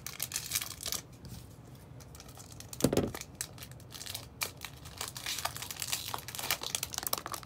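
Foil wrapper of a Pokémon trading card booster pack crinkling and tearing open, with a dull thump about three seconds in.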